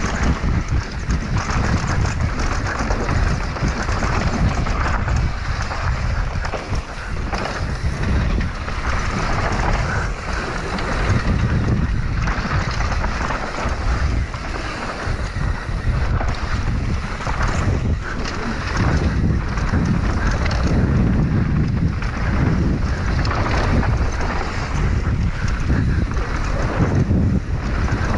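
Downhill mountain bike descending fast on a dirt trail: wind buffeting the microphone in a steady rumble, with the knobby tyres on dirt and the bike knocking and rattling over bumps throughout.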